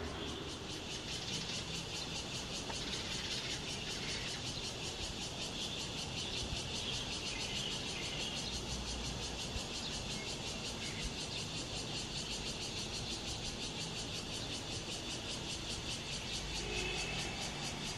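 Steady, high-pitched insect chorus, a fine rapid pulsing that never lets up, over a low steady rumble.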